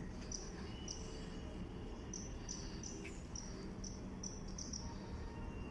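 Outdoor ambience: a short high-pitched chirp repeating about three times a second, fairly regularly, over a steady low rumble.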